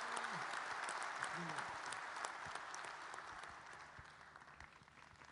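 Audience applauding, the clapping dying away over the last couple of seconds.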